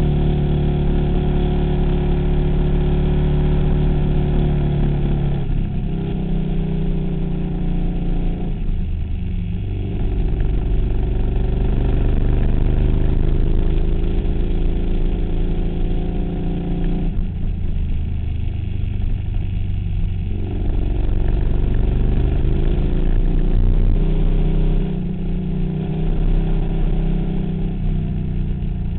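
2008 KTM Super Duke's V-twin engine heard from on board while riding, its note dropping and climbing again several times as the revs change.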